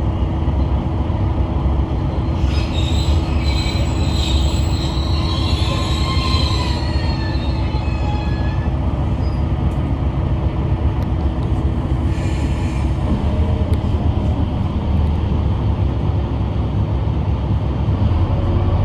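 Kishu Railway diesel railcar running, heard from inside the car as a steady low rumble. High wheel squeal comes in about two seconds in and lasts several seconds, then returns briefly around twelve seconds.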